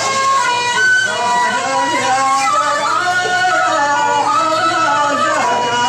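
Hadrami dan singing: a voice drawing out a long, winding melodic line that glides up and down, over steady held accompanying notes.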